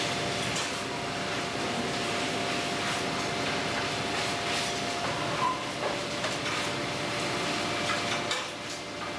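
Steady mechanical din of a fishing longliner's deck machinery while the longline is hauled aboard, with occasional knocks and clicks over it; a steady hum runs through the first half, and the noise dips briefly near the end.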